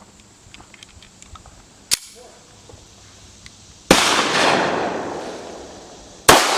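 Two shots from a .45 ACP 1911 Commander pistol with a Schuemann Hybrid-Comp two-port barrel, about two and a half seconds apart. Each sharp report is followed by a long echo that fades over about two seconds.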